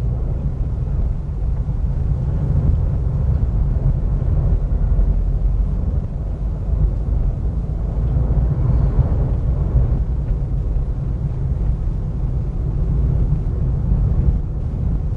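Steady low rumble of a car's engine and road noise, heard from inside the cabin while the car drives along in third gear.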